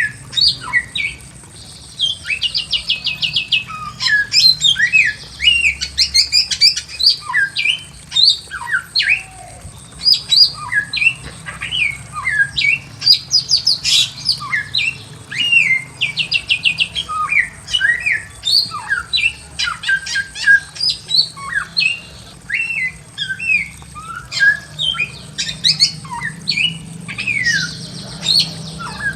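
Bare-throated whistler (samyong) singing non-stop: a dense run of short whistles sliding up and down in pitch. Fast rattling trills break in several times.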